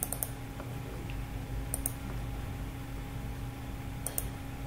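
Computer mouse clicking: three quick pairs of sharp clicks about two seconds apart, over a steady low hum.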